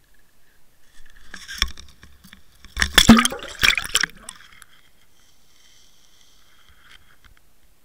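Water splashing and bubbling against a Water Wolf underwater camera as it passes through the water surface. A run of knocks and splashes is loudest about three seconds in and stops after about four seconds, leaving a faint hiss.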